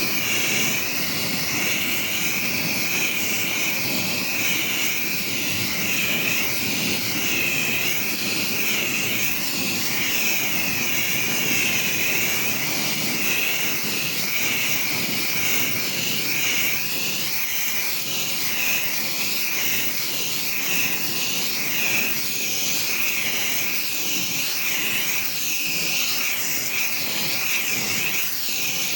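Pressure washer running steadily with its spray hissing; the high hiss wavers up and down in pitch throughout.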